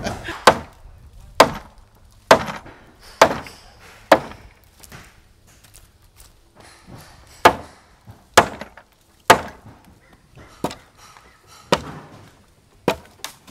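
Sledgehammer striking old wooden deck boards to knock them loose for salvage: sharp wooden knocks about one a second, about eleven in all, with a pause of a few seconds midway.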